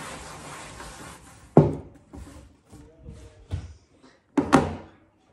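Clearing up after a meal: a hiss of noise for about the first second and a half, then the knocks and clatter of things being handled and set down, the loudest a sharp knock just after the hiss stops and a pair of knocks near the end.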